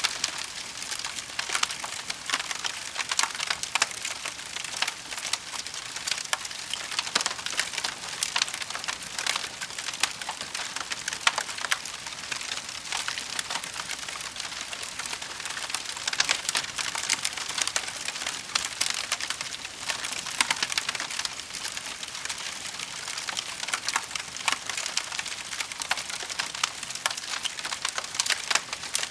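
Wood fire crackling steadily: a dense run of small snaps and pops, with a few louder pops here and there.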